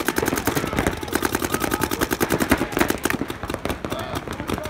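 Paintball markers firing rapid, overlapping strings of shots, about a dozen a second; the firing thins out about three seconds in.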